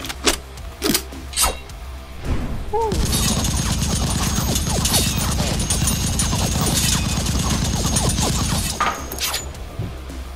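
Nerf blaster battle sound: three sharp shots in the first second and a half, then about six seconds of dense rapid-fire rattle with falling whistles, all over background music.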